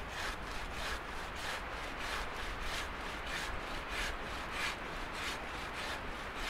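Hand saw cutting through a fallen conifer log, each rasping stroke of the blade through the wood following the last at about three a second. The sawing stops near the end.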